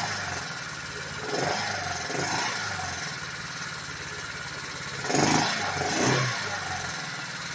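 Freshly rebuilt GY6 150cc single-cylinder four-stroke scooter engine running at idle on its first run after the top-end rebuild, revved up briefly four times.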